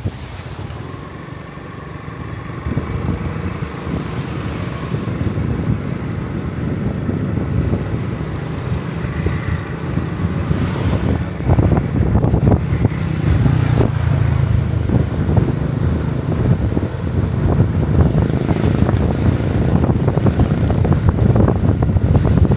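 Wind buffeting the microphone: a steady low rumble with irregular gusts, growing louder over the first few seconds.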